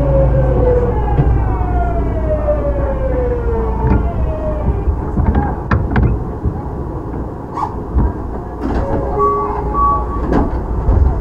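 Hitachi GTO-VVVF inverter of a Tokyu 9000 series train heard from on board, its whine falling steadily in pitch as the train slows under braking. After about five seconds the whine has died away, leaving the running rumble with scattered clicks and knocks and short steady tones near the end as the train comes toward a stop.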